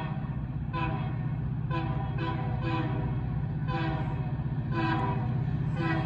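Diesel locomotive air horn played in a string of about eight short blasts, each a chord of several notes, over the steady low rumble of the locomotive's engine as the train approaches.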